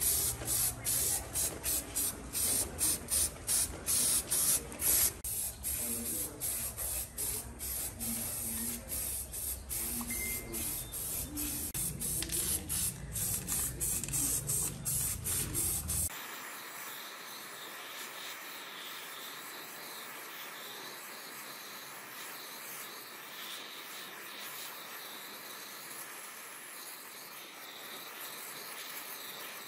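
Aerosol spray-paint can sprayed in many short hissing bursts. About halfway through the sound changes to the steady, quieter hiss of a gas torch flame.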